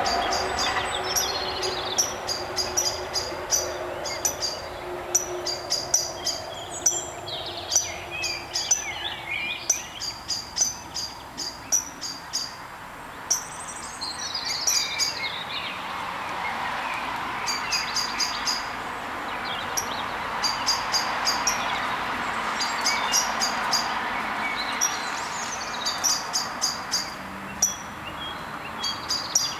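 Mute swan cygnets peeping, high thin calls repeated in quick runs of several at a time, with a few warbling bird calls mixed in.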